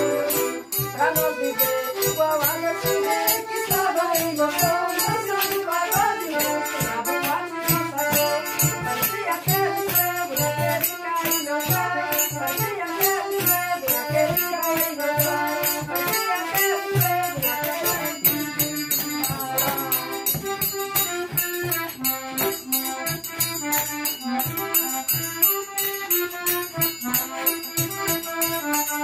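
Music with a quick, steady rattling percussion beat under a melody line and a regular low beat.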